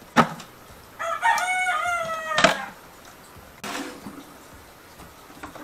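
One long animal call lasting about a second and a half, with a sharp knock just before it and another as it ends.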